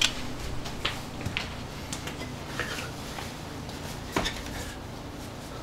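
Scattered light clicks and knocks of small hard objects, with one louder knock about four seconds in, over a low steady room hum.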